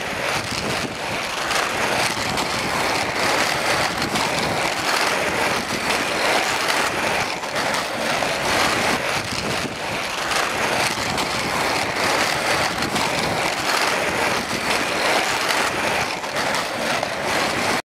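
Inline skate wheels rolling fast over asphalt: a steady, gritty rushing noise that cuts off suddenly near the end.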